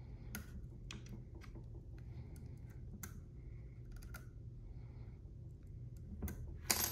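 Faint, irregular light clicks and taps as a small 5/64 Allen key turns a set screw into the buffer tube of an AR-style 12-gauge shotgun, over a steady low hum.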